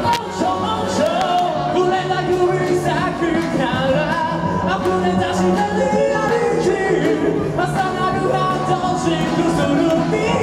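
Live band playing an energetic song on electric guitars, bass and keyboard, with several voices singing into microphones.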